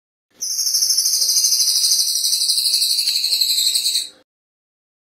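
Crested jay (cililin) giving a fast, high-pitched, metallic rattling trill. It starts about half a second in, lasts about four seconds and sinks slightly in pitch before it stops.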